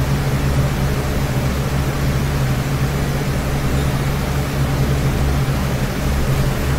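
Steady hiss with an even low hum underneath: constant background room noise, with no other event.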